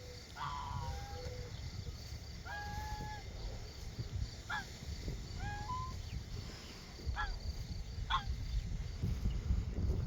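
Domestic geese honking, about six separate calls spread out, one of them held longer than the rest, over a low rumble.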